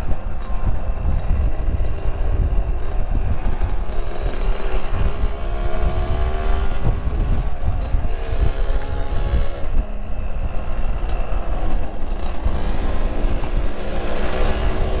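Yamaha RX-King's two-stroke single-cylinder engine running while riding, its pitch rising and falling with the throttle, over heavy wind rumble on the microphone.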